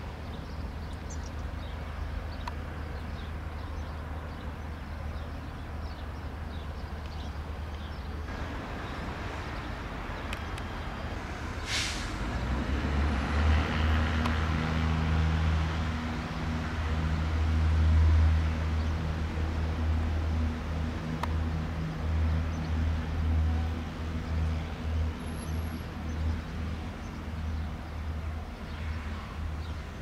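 Piper PA-28-140 Cherokee Cruiser's four-cylinder Lycoming piston engine and propeller running steadily at low power. About twelve seconds in, the engine comes up to takeoff power for the takeoff roll and runs louder, then wavers and eases slightly as the aircraft rolls away.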